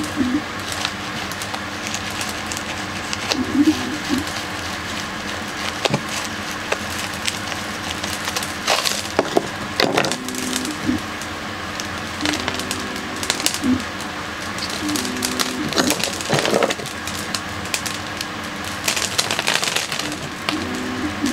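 Gritty cactus potting soil and roots crackling and crumbling as a grafted cactus's root ball is pulled out of its pot and broken apart by hand, in irregular small crackles with a few louder bursts of crumbling.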